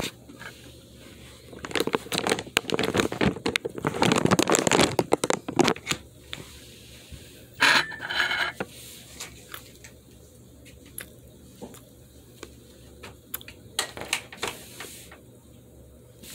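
Close-up scraping and crackling of someone eating pizza and handling things at the camera: a dense run of small clicks and scrapes for several seconds, a louder scrape about eight seconds in, then scattered small clicks.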